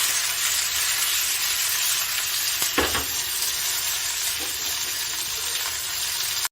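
Fish pieces shallow-frying in hot oil in a pan: a steady sizzle.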